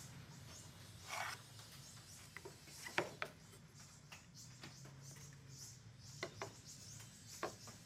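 Faint light knocks and taps of wooden boards being set down and shifted on a table saw's top, with a short scrape about a second in, over a low steady hum.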